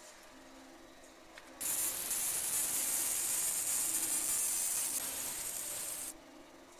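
Laser marking machine etching a steel roller bearing's outer ring: a loud high hiss of the beam ablating the metal, starting suddenly about a second and a half in and cutting off about four and a half seconds later when the mark is done.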